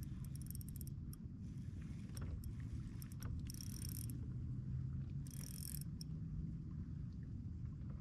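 Fishing kayak under way: its drive keeps up a steady low mechanical hum, with a few short, high crackling bursts over it.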